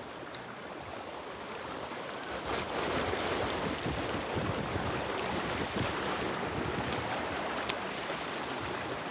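Fast-flowing stream rushing steadily, a little louder from about two and a half seconds in, with a few faint clicks.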